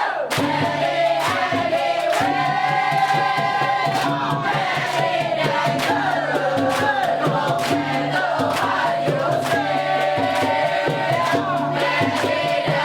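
Dikir Barat singing: sustained voices gliding through long, bending notes, over a steady low accompaniment and repeated hand-percussion strokes.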